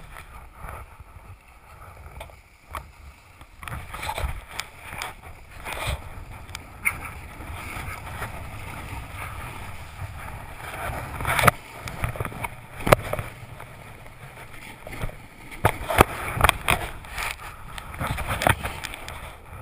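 Snowboard sliding and scraping over packed snow: a continuous rough hiss broken by frequent sharp knocks and bumps, the loudest a little past halfway and again later.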